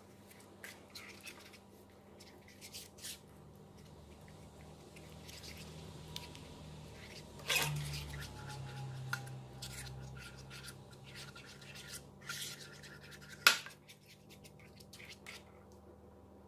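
Metal spoon stirring thick, thawed acrylic paint in a small nonstick frying pan: soft wet scraping and rubbing, with scattered clicks of the spoon on the pan. The sharpest click comes about thirteen seconds in.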